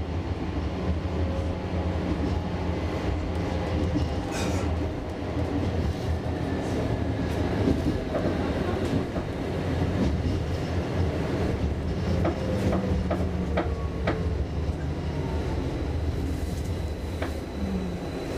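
A32 (Bombardier Flexity Swift) tram running, heard from inside the car: a steady rumble of wheels on rail with a few sharp clicks over rail joints. Faint tones slide down in pitch now and then.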